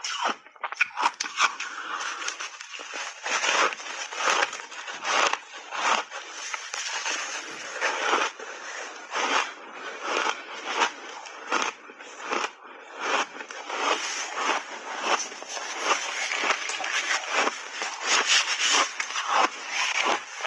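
Refrozen block ice being bitten and chewed close to the microphone: a fast, uneven run of crisp crunches, several a second, without a break.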